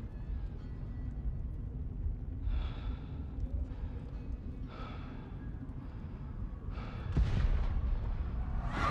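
A man breathing heavily in a few long, heavy breaths over a steady low rumble, with a dull thump about seven seconds in.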